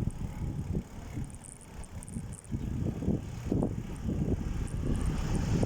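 Low, gusting rumble of wind and road noise on the microphone of a moving bike, easing off for a second or so early on before picking up again.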